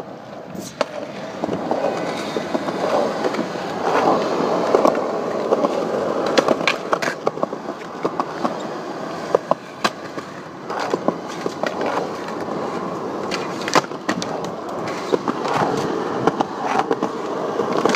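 Skateboard wheels rolling on smooth concrete, with frequent sharp clacks as the board strikes the ground.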